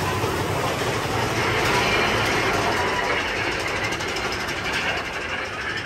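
Mine-train roller coaster running along its track: a steady rumble and rattle of the cars and wheels, easing a little near the end.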